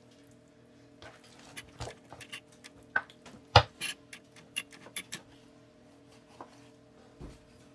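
Kitchen knife scoring a raw whole chicken, the blade tapping and knocking on a wooden cutting board in a quick string of sharp clicks from about a second in, loudest near the middle, then two faint taps near the end.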